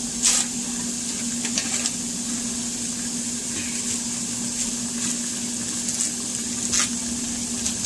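Kitchen tap running a steady stream into a stainless steel pan of crawfish in water, a continuous splashing hiss as the crawfish are rinsed clean, with a low steady hum underneath. Two brief sharper splashes stand out, just after the start and near the end.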